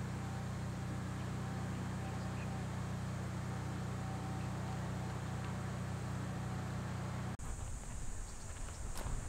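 A steady low mechanical hum with a light hiss over it. About seven seconds in it cuts off suddenly, giving way to an uneven low rumble, like wind on the microphone, and a single click.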